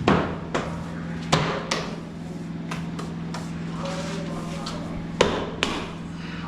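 Irregular hammer blows on wood: about nine sharp knocks, most in the first three seconds and a final pair after five seconds, over a steady low hum.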